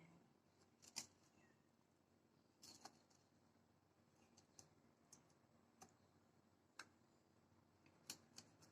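Faint, scattered clicks and taps, about eight at irregular intervals, from a blade trimming fat off raw pork spare ribs.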